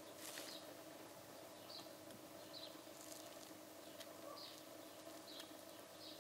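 Near silence: a faint steady hum, with soft rustles about once a second from a gloved hand handling a plastic oil bottle.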